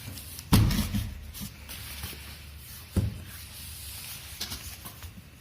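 Cardboard keyboard box being opened by hand: a thump about half a second in, then the flaps and packing rubbing and rustling, with another knock around three seconds in.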